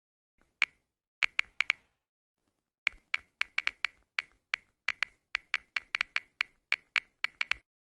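A series of sharp, short taps or clicks against total silence: one, then a quick group of four, then an uneven run of about three or four a second.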